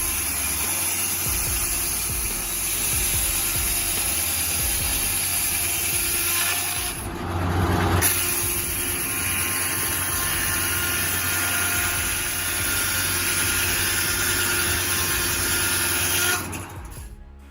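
Tractor-driven circular saw (Foley Bell Saw M14) running with the engine noise, cutting wood. The sound shifts briefly about seven seconds in, then drops away sharply near the end.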